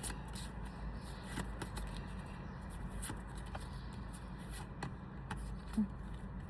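Pokémon trading cards being handled and flicked one behind another while looking through a booster pack: soft slides and light clicks about once a second, over a steady low hum, with a short low tone near the end.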